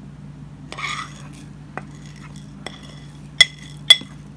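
Metal spoon scraping ground spices off a plate into a glass bowl, with a few light clicks and then two sharp, ringing clinks of the spoon on the dishes near the end.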